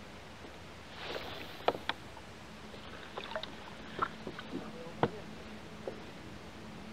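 Sharp clicks and light knocks from a spinning rod and reel being handled in a plastic fishing kayak after a cast, as the reel is worked to retrieve the lure. A brief soft rush comes about a second in, followed by scattered clicks, two of them louder, over a faint steady hum.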